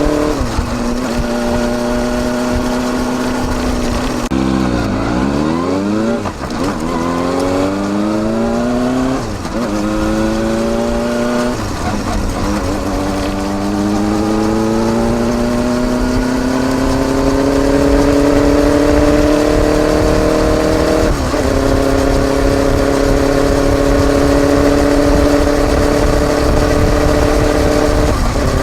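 Kawasaki Balius 250cc inline-four motorcycle's exhaust note through a Wr's aftermarket muffler with its baffle fitted, heard right at the silencer. Engine speed falls sharply about five seconds in. The bike then accelerates up through the gears, the pitch climbing and dropping suddenly at each upshift, with longer, slower climbs in the higher gears.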